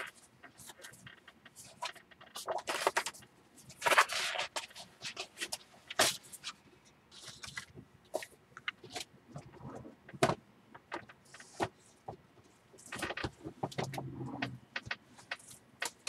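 Paper and craft supplies being handled on a work table: rustling and scraping of paper with scattered clicks and taps, as a sheet of white card is laid down.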